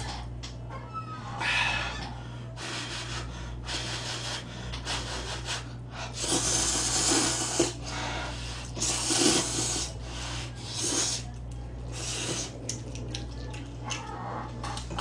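Ramyeon noodles being slurped, in several drawn-in hissing slurps, the longest about six seconds in.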